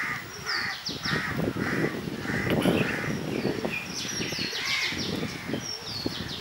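A crow cawing over and over, about two caws a second through the first half, with another bird's high, falling chirps now and then. A low rumble runs underneath, loudest around the middle.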